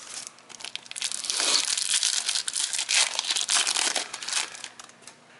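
Foil wrapper of a 2018 Prizm basketball card pack being torn open and crinkled by hand. A dense crackle that starts about a second in and dies away near the end.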